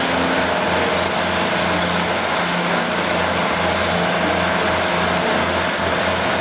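Large Komatsu crawler bulldozer working under load, its diesel engine and tracks making a steady, heavy machine noise as the blade pushes a pile of earth, with a thin steady high whine over it.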